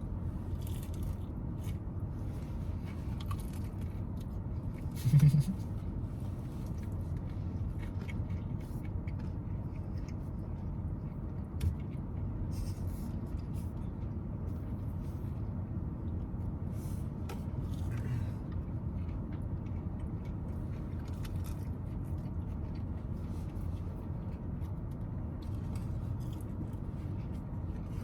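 People quietly eating fast food: faint chewing, crunching and rustling of food wrappers over a steady low background rumble. A short, loud, low bump about five seconds in, and a small click a few seconds later.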